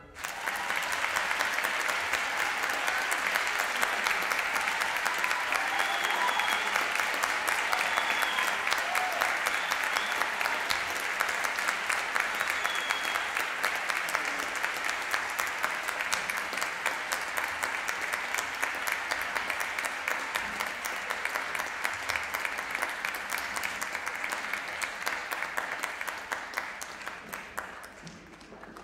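Audience applauding steadily, the clapping thinning and fading away near the end.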